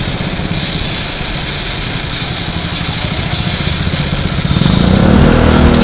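Road traffic with a motor vehicle's engine drawing close, louder from about four and a half seconds in, over a steady noisy background.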